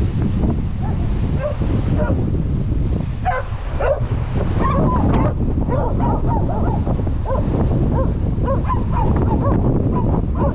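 Hunting dog whining and yipping in a quick run of short high calls, worked up at a mink it has found hiding under a boulder. Heavy wind rumble on the microphone.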